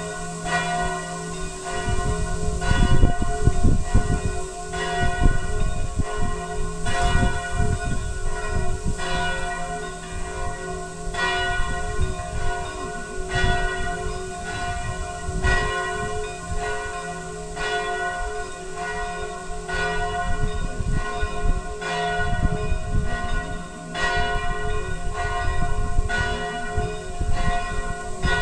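Church bells pealing, several bells struck in turn about once a second so their ringing overlaps, over a low rumble, as heard on a phone recording.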